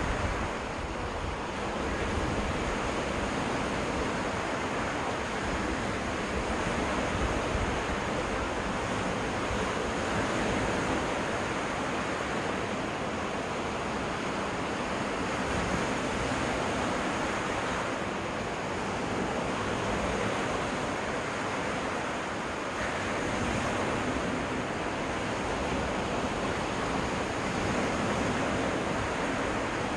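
Waves washing ashore on a freshwater lake beach, a steady wash of surf that swells and eases every few seconds, with wind rumbling on the microphone.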